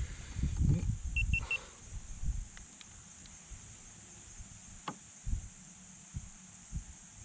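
Low rumbling thumps of handling noise, then scattered knocks and clicks as a smallmouth bass is brought into a kayak. About a second in there are three short, quick, high beeps.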